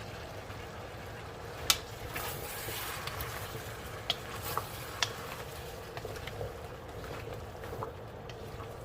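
Vegetables simmering in a pot with a steady bubbling hiss, broken by a few sharp metal clinks against the pot, the loudest a little under two seconds in.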